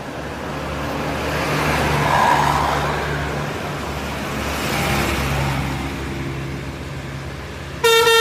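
Large buses passing close by one after another, their engines running with a swell of road and tyre noise as each goes by, about two seconds in and again about five seconds in. Near the end a bus's multi-tone horn starts playing a stepped tune.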